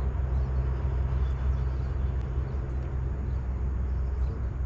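Wind buffeting the boat-mounted camera's microphone: a steady low rumble that rises and falls a little in level.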